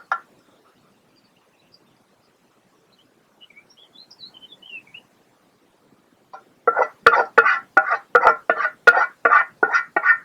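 Birds calling: a few faint high chirps, then, from about six and a half seconds in, a loud run of harsh repeated calls at about three a second, with a few sharp clicks among them.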